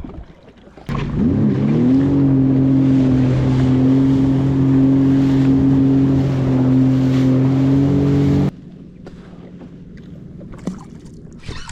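Jet ski engine starting up loud about a second in, rising in pitch as it accelerates, then running at a steady pitch before cutting off abruptly.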